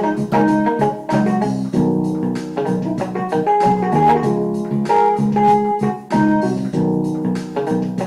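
Background music played on a keyboard, held organ-like chords that change every second or so under piano notes.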